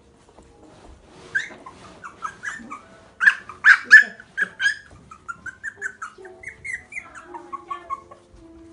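Young puppies whining and squeaking in a run of short, high calls, loudest about three to four seconds in.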